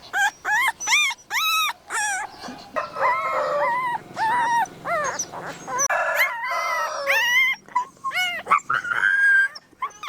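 Puppies whining and yelping: a string of short, high cries that rise and fall, with several puppies crying over one another in the middle.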